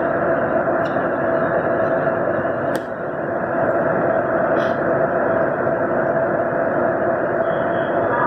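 Steady running noise inside a moving train car: a constant rushing sound with a steady hum, and a brief click about three seconds in.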